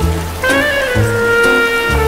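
Slow saxophone melody of long held notes, one bending up in pitch about half a second in, over a low bass line, with steady rain in the background.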